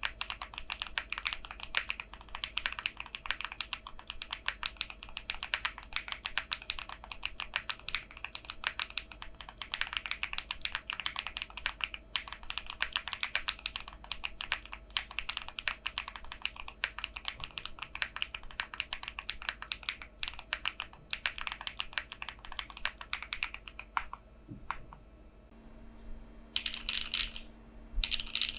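Fast, continuous typing on a Haven TKL mechanical keyboard with Gateron Silyworks SLAY Type R switches and PBTFans Pyga PBT keycaps: a dense run of keystroke clicks that eases off briefly near the end before two short quick bursts.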